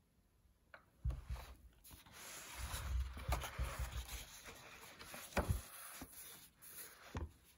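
A paperback book being handled and opened, its cover and pages rubbing and rustling, with a soft knock about a second in and a couple of sharp clicks.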